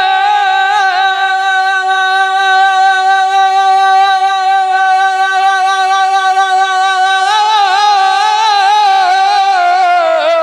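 A man singing a naat unaccompanied, drawing out one long high note. It holds steady for most of the time, then wavers in ornaments about seven seconds in, and falls away at the end.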